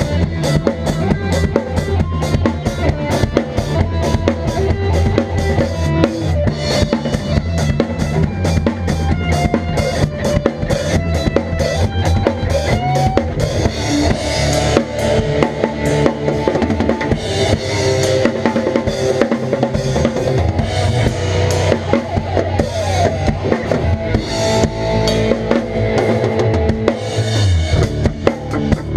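A drum kit played hard, heard close up from just above the kit: fast kick and snare strikes with crashing cymbals. A band's bass and electric guitar play along underneath.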